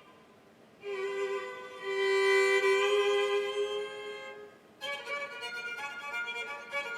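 Solo fiddle in sawmill tuning, bowed. After a moment of quiet it holds long notes on two strings at once, then starts a busier phrase of shorter notes about five seconds in.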